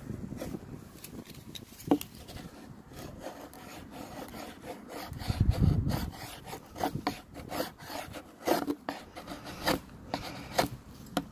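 Rasping and rubbing scrapes, with a low dull rumble about halfway and then a quick run of sharp clicks and short scrapes over the last five seconds.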